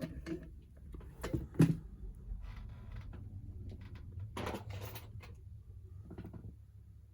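Lock being taken out of a bench vise: scattered knocks and short handling rattles, the loudest about a second and a half in, over a steady low hum.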